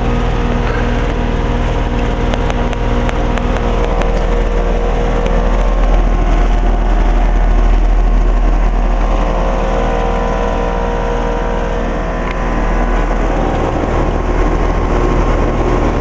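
Outdoor condensing unit of a 2010 Bryant Evolution two-stage heat pump, with its Copeland scroll compressor, running in heating mode after a defrost cycle. A steady, loud mechanical hum with several steady tones and a whoosh of air.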